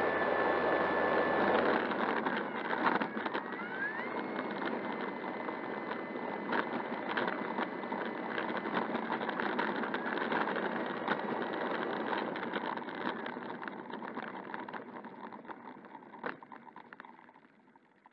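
Electric motor of an E-flite Air Tractor RC plane whining steadily at low throttle, rising in pitch about four seconds in, over the rattle of its wheels rolling on rough asphalt as it taxis. The sound dies away near the end as the plane stops and the propeller comes to rest.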